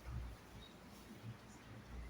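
Near silence in a pause between speech: faint room tone, with a soft low thump just after the start and a weaker one near the end.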